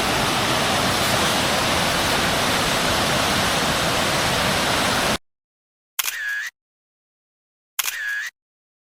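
Steady rushing of a waterfall that cuts off abruptly about five seconds in. Dead silence follows, broken by two short, identical camera-shutter sounds about two seconds apart.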